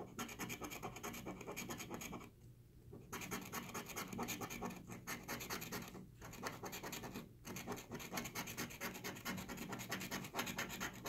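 Gold coin scraping the coating off a paper scratch-off lottery ticket in rapid back-and-forth strokes. There is a pause of nearly a second about two seconds in, and a couple of brief breaks later.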